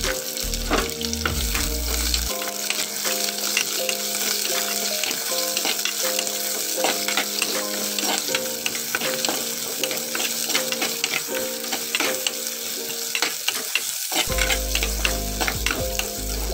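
Sliced onions sizzling as they fry in hot coconut oil in an earthenware clay pot, stirred with a steel spoon. Frequent sharp clicks and scrapes run through the steady sizzle.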